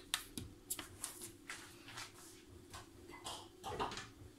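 Plastic cooking-oil bottle being handled and set aside after pouring: faint, irregular clicks and small knocks of plastic, a few sharper ones near the start and again near the end.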